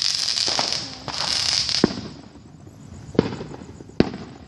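Fireworks going off: a dense crackling hiss for the first two seconds, then three separate sharp bangs.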